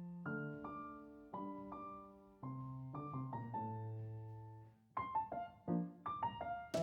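Background piano music: gentle chords and a melody with notes ringing and fading, the notes coming quicker near the end.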